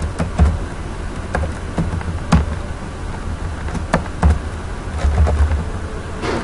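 Computer keyboard keystrokes, irregular single clicks spaced unevenly, over a steady low hum and faint hiss.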